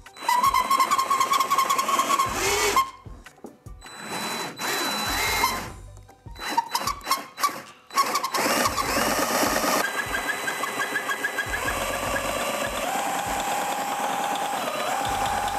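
A cordless drill fitted to the handwheel of a Nelco sewing machine spins the machine's mechanism in short runs that stop and start, its motor whine rising and falling with the trigger. From about eight seconds in it runs steadily, the pitch stepping up and holding, as the long-idle, freshly oiled mechanism is worked loose.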